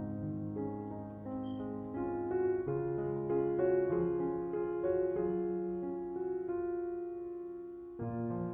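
Instrumental piano music: slow, gentle chords and a simple melody with held, overlapping notes, changing about once a second.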